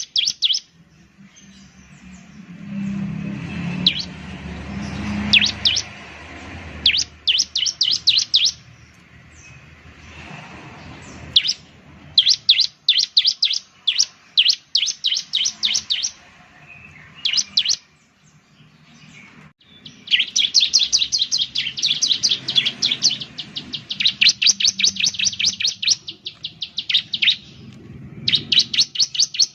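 Bar-winged prinia (ciblek) song: rapid trains of sharp, high chirps in bursts, some lasting about a second and the longest about six seconds, starting about twenty seconds in. A low rumble sits under the song about two to six seconds in.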